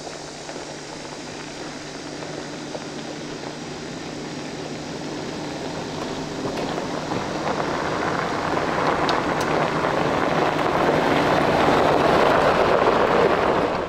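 A vehicle driving, its engine drone and road and wind noise growing steadily louder over the last several seconds, then cutting off abruptly.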